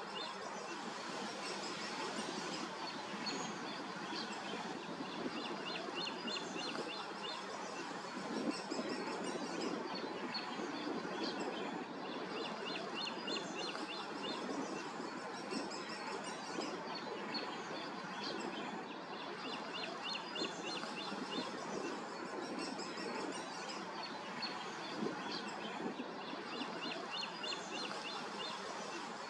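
Birds singing over a steady background rush, with one songbird repeating a short phrase of quick high chirps every few seconds.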